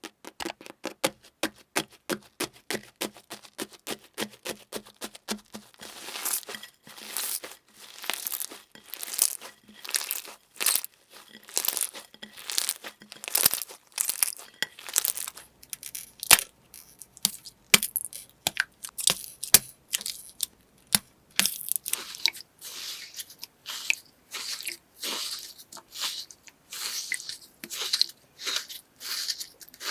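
Crunchy ASMR material being pressed and pulled apart by hand. It starts as a quick run of fine crackles and, after about six seconds, turns into slower crunches at about two a second.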